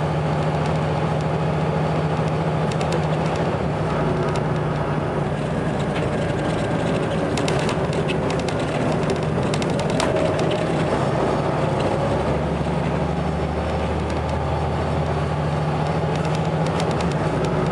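Volvo B7RLE bus's diesel engine running steadily, its low drone shifting in pitch a few times, with a few faint rattles in the middle.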